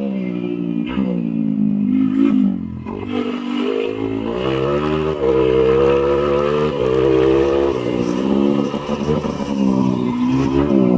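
Dirt bike engine revving hard under race load, its pitch climbing and dropping again and again as the rider works through the gears and throttle, held high for a couple of seconds about midway.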